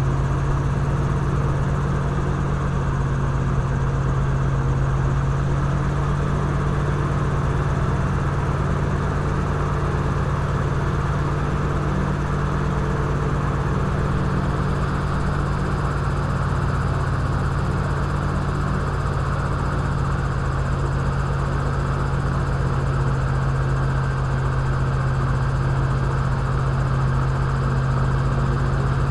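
Airboat's engine and large air propeller running steadily as the boat travels, a loud, constant drone whose pitch steps up slightly right at the start.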